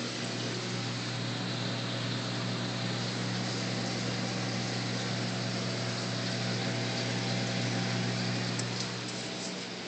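Steady hum and even rushing of a large reef aquarium's pumps and circulating water.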